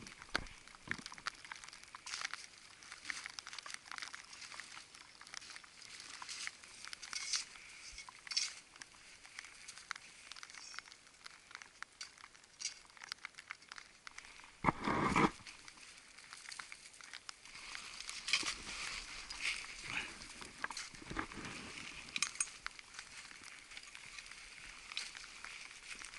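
Crunching and scuffing of snow with light clinks of climbing gear, as a roped climber in crampons kicks steps up a steep snow slope; many short crisp crackles, with one louder thump about halfway through.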